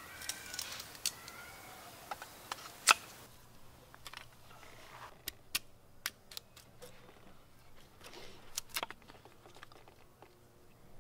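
Sharp, irregular clicks and cracks of small sticks of wood being split and worked with a knife, the loudest crack about three seconds in.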